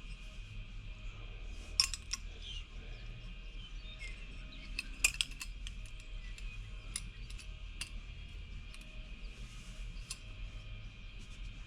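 A few sharp clicks and taps from hand tools being handled and worked at a bench, the loudest about two seconds in and again about five seconds in, over a steady low workshop hum.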